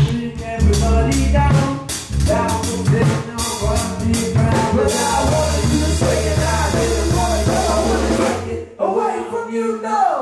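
A live band rehearsing in a room: a drum beat with a heavy bass pulse under a singer on microphone and keyboard parts. The music breaks off briefly near the end.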